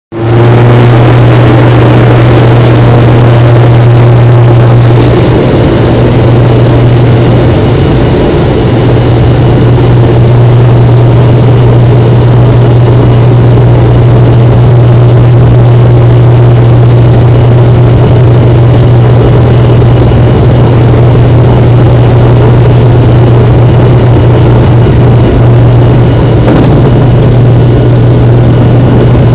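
Turboprop airliner's engines and propellers heard from inside the cabin during the takeoff run: a loud, steady drone with a strong low hum.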